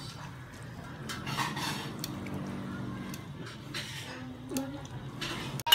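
A metal utensil stirring and lifting boiled thin noodles in a large stainless-steel pot of water, giving soft wet swishes a few times with light scrapes and clinks against the pot, over a steady low hum.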